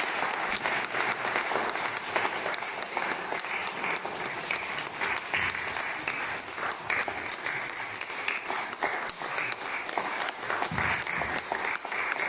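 Audience applauding: many hands clapping steadily and densely throughout.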